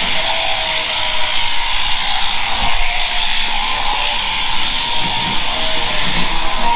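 Electric sheep-shearing handpiece buzzing steadily as it clips the fleece off a Scottish Blackface ewe.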